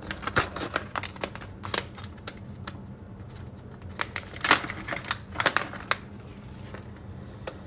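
Product packaging being opened and handled by hand: a string of irregular clicks and crinkles, with a cluster of louder clicks about halfway through.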